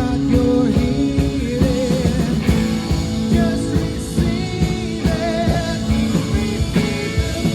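Live worship band playing a rock-style song with guitars, bass and drums, a voice singing a sustained, wavering line over it.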